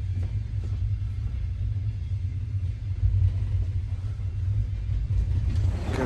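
Passenger train running, heard from inside the carriage as a steady low rumble.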